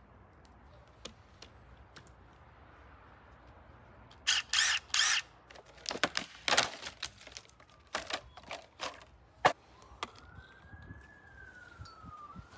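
Handling of cordless power tools: about four seconds in, three short noisy bursts, then a string of sharp clicks and knocks. Near the end a faint whine rises and falls slowly in pitch.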